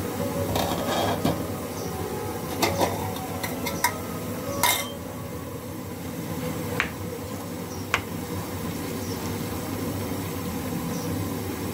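Chicken and whole tomatoes frying in oil in a nonstick karahi, a steady sizzle, while a wooden spatula stirs them, with several sharp knocks of the spatula against the pan in the first part.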